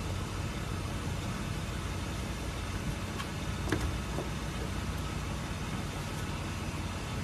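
Car engine running slowly with a steady low rumble, and a couple of short sharp cracks about halfway through.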